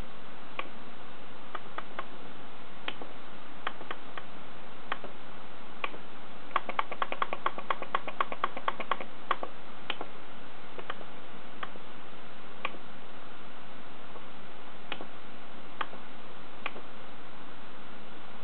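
Sharp clicks from operating an Asus Videophone Touch's menu, mostly single clicks a second or so apart, with a fast run of about fifteen clicks, five or six a second, around the middle. A steady hiss underlies them.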